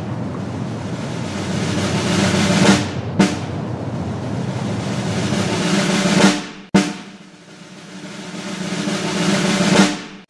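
Dramatic snare drum rolls, three of them, each building louder and then cutting off abruptly, with a single hit just after the second.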